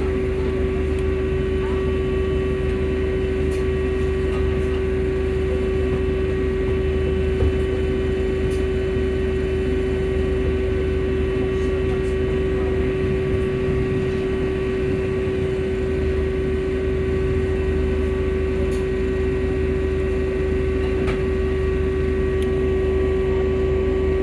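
Volvo B5L hybrid bus giving off a steady hum with one strong, unchanging tone, fainter higher tones above it and a low rumble beneath.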